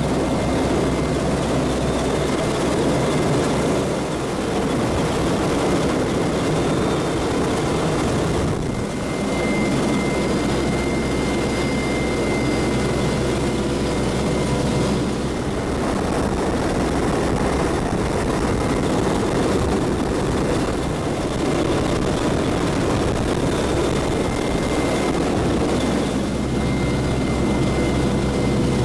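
CH-149 Cormorant search-and-rescue helicopter running steadily in a hover, heard from inside the cabin with the side door open: a heavy rotor and turbine rumble with a thin, steady high whine over it.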